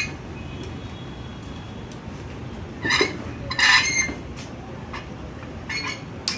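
Metal clinks and knocks from a hex key and the cast-metal gearbox of a brush cutter rotavator attachment being handled while its bolts are loosened. The loudest is a cluster of ringing clinks about three seconds in, with a few single clicks near the start and the end, over a steady low hum.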